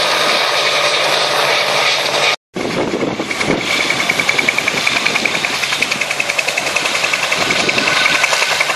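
Bell 47G helicopter flying overhead with a steady engine-and-rotor sound. After a sudden cut to a moment of silence about two and a half seconds in, a Bell 47G is heard close by near the ground, its two-bladed rotor beating rapidly over a high steady whine.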